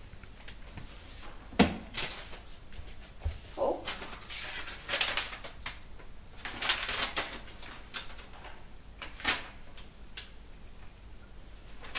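Rummaging at a wooden bookshelf: scattered knocks and paper rustles as books and loose sheets are handled, with a sharp knock about one and a half seconds in.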